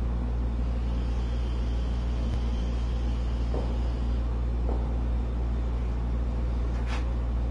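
Steady low hum made of several constant low tones, with a few faint knocks about halfway through and near the end.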